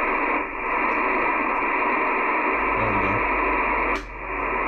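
Cobra 2000 GTL CB radio's speaker hissing with steady static and band noise on lower sideband. About four seconds in there is a sharp click and the noise briefly drops before coming back.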